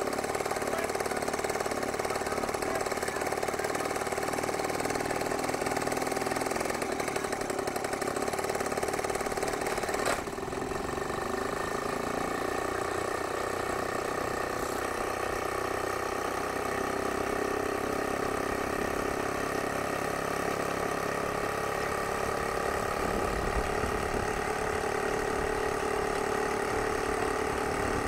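Ultralight aircraft engine and propeller running steadily on a ground run. About ten seconds in there is a sharp click and the level dips slightly, after which the engine note is steadier.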